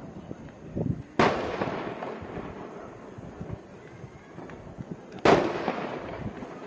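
Two aerial fireworks shells bursting, about four seconds apart, each a sharp bang followed by a rolling echo that fades over a second or so.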